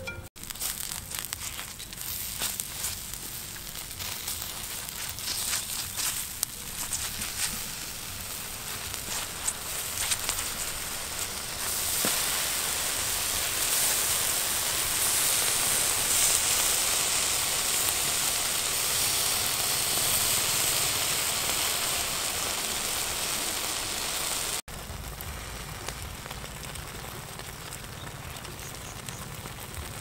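Charcoal fire crackling under a whole duck roasting on a spit, with a steady sizzling hiss from the roasting duck that grows louder about halfway through.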